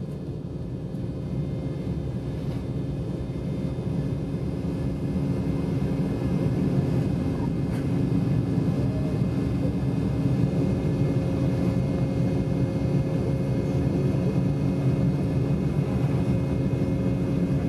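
Embraer E190's twin GE CF34-10E turbofans at takeoff power, heard inside the cabin during lift-off and climb-out. It is a steady, loud noise with a hum, growing louder over the first several seconds, then holding level.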